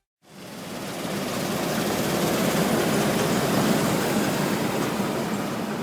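John Deere 1188 SII Hydro 4 combine harvester running, a steady, rough mechanical drone that fades in about a quarter second in and eases off slightly near the end.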